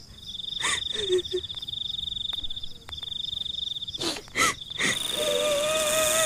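Night ambience: a steady, high, pulsing insect trill like a cricket's, broken by a few short animal calls, two of them close together about four seconds in. About five seconds in, a wavering tone over a hiss sets in.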